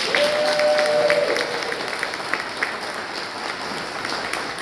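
Dinner audience applauding in a large hall, a steady patter of many hands clapping. In the first second, one voice gives a short held cheer over the clapping.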